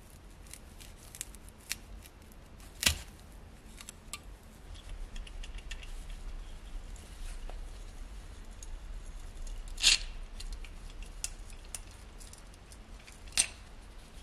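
Small metallic clicks, scrapes and rustles of a rusty tin wind-up toy scooter being handled and taken apart by gloved hands, as the plush teddy bear is worked free of its metal frame. Three sharper metal clicks stand out: about three seconds in, about ten seconds in, and once more near the end.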